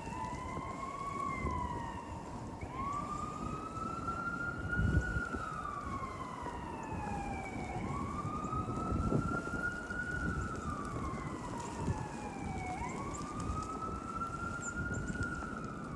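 Emergency vehicle siren in a slow wail: each cycle rises quickly, then falls slowly over about four seconds, repeating about four times. A steady low rush of wind noise runs underneath.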